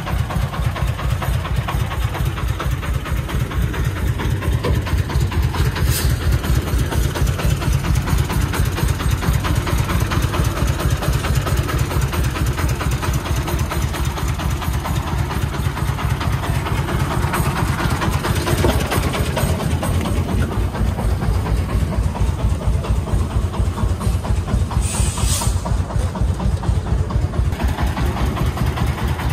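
A công nông three-wheeled tipper truck's diesel engine, fitted with a 40 hp engine, running with a rapid even beat as the truck creeps along loaded with concrete blocks. A short hiss comes about 25 seconds in.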